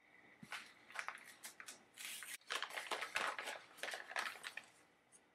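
Packaging being handled and opened: irregular rustling, crinkling and scraping of paper and plastic, busiest in the middle.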